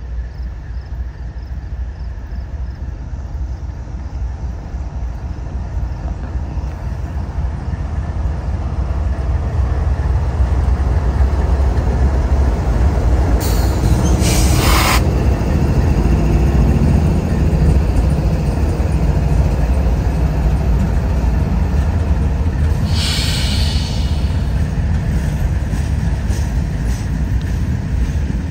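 CSX diesel locomotives of a freight train passing close by, engines running with a deep rumble that grows louder as they come alongside. Two short high-pitched hisses cut in, one about halfway through and one near the end.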